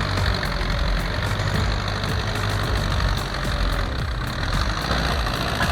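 A bulldozer's engine running steadily.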